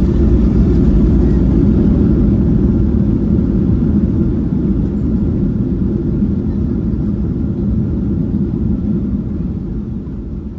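Cabin noise of a Boeing 737-800 decelerating on the runway just after landing: a loud, steady low rumble from the engines and the rolling airliner that fades over the last few seconds as it slows.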